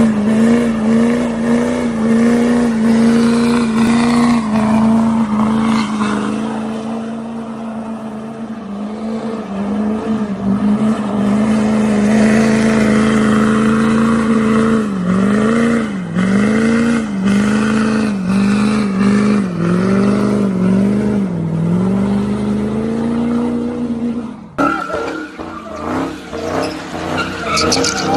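Pickup truck engine held at high, steady revs through a burnout, tyres spinning against the pavement; the revs dip and climb back several times in the second half. Near the end the sound changes abruptly to another car's engine and squealing tyres as it spins donuts.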